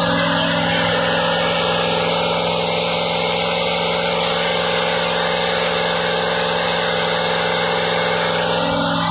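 Rebuilt 1972 Pontiac 350 V8 engine running steadily.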